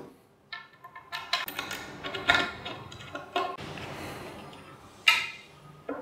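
Light metallic clicks and clinks of a hydrofoil quick release module and a hex key being handled and fitted onto the mast head, scattered through, with the sharpest click about five seconds in.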